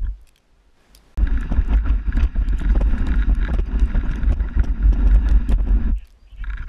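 Dog sled running over a snowy trail: a dense rumbling scrape with rattling clatter, picked up through the sled-mounted camera. It starts abruptly about a second in and cuts off about six seconds in.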